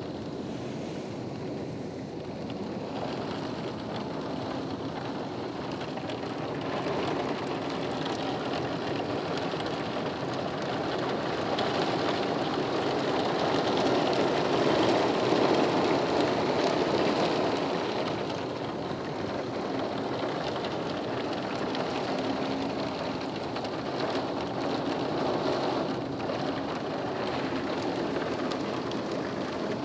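Heavy rain and strong storm wind in a violent thunderstorm, a steady rushing roar that builds to its loudest about halfway through and then eases a little.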